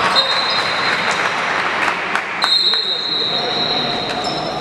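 Basketball game court sound: players' and spectators' voices, sneakers squeaking on the hardwood floor, and a few ball bounces.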